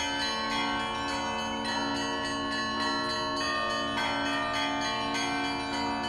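Russian Orthodox church bells being rung: higher bells struck in a rapid, dense pattern several times a second over the steady hum of lower, larger bells.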